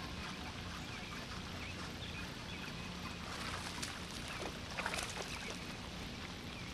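Outdoor waterside sound with a steady low hum throughout, faint bird chirps, and a few light water splashes from about three and a half to five seconds in as a small bass is reeled in.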